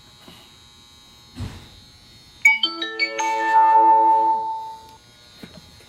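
A short electronic chime, like a ringtone: a quick run of notes starting about two and a half seconds in, ringing on together and fading out over about two seconds. A soft thump comes about a second before it.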